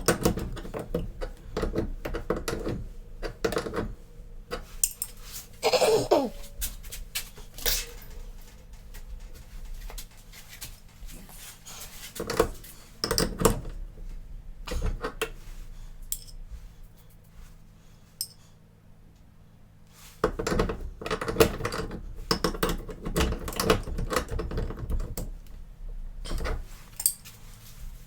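Irregular clicks, taps and clatter of small plastic and metal parts and hand tools being handled while reassembling a mechanical milking-pipeline wash box, with a brief squeak about six seconds in and a quieter lull in the middle.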